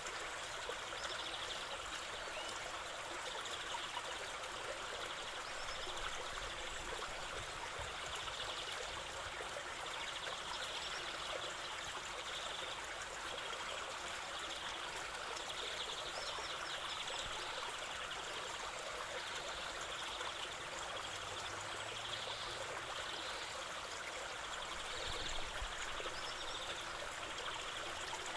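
River water flowing steadily, with short high bird calls coming and going over it.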